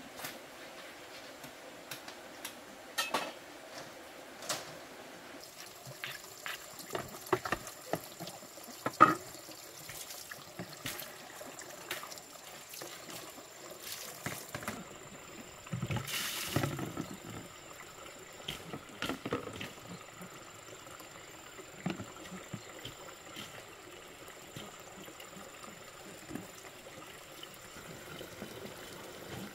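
Water poured from a plastic bowl into a plastic basin and splashed about as a luffa gourd is washed by hand, with a short rush of pouring about sixteen seconds in. Sharp knocks and clatters come in the first ten seconds, the loudest about nine seconds in.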